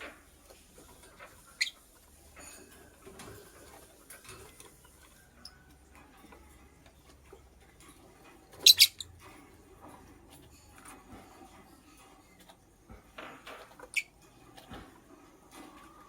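Lovebird giving a quick burst of sharp, high-pitched chirps about halfway through and one more short chirp near the end, over faint scratching and ticking.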